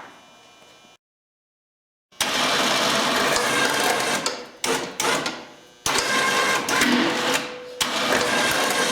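ATV electric winch running in several spurts, its motor and gears whirring and starting and stopping sharply as the switch is pressed and released, winding the newly clamped cable to work the snow plow.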